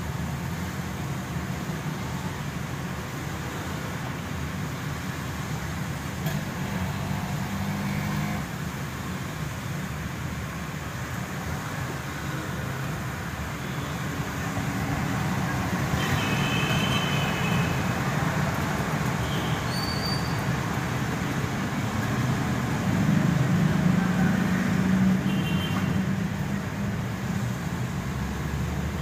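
Car driving on a wet road, heard from inside the cabin: a steady rumble of engine and tyres with the traffic around it, growing louder in the second half. A few brief high tones sound near the middle.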